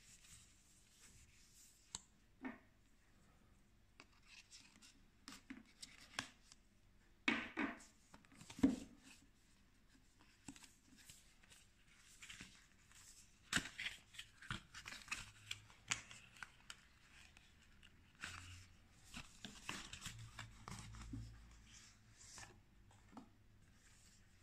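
Cardboard watch box handled and opened by hand: scraping, rustling and small knocks of paperboard as an inner box is slid out of the outer sleeve, with a few louder scrapes and knocks about a third of the way in.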